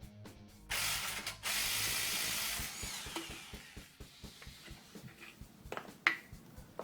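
Impact driver hammering in two loud bursts as it undoes the 21 mm shock absorber bolts, the second burst fading away. A few sharp metal clanks follow near the end.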